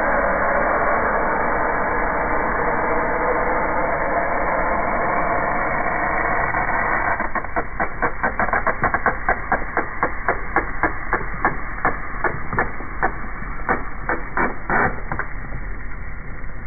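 Milk drink hissing out in a steady spray from a plastic bottle squashed under a car tyre. About halfway through, the hiss fades and a run of sharp crackling clicks begins, three or four a second, as the plastic bottles buckle and crunch under the wheel.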